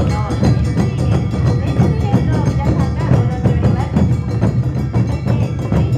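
Awa Odori narimono band playing the zomeki rhythm: large hand-held taiko drums beaten in a fast steady beat, with the bright clang of kane hand gongs on top.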